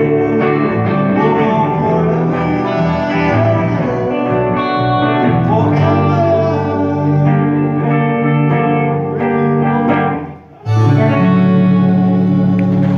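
Live rock song: a man singing over two electric guitars. About ten seconds in the music drops out for a moment, then comes back with a harmonica playing long held notes over the guitars.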